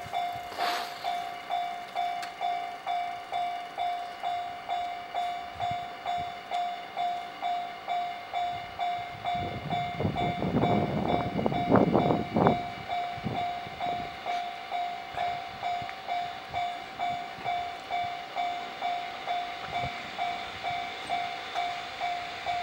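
Japanese level-crossing warning bell ringing steadily, about two electronic strokes a second, signalling an approaching train. About ten seconds in, a short clattering rumble with rapid clacks rises over it for a few seconds.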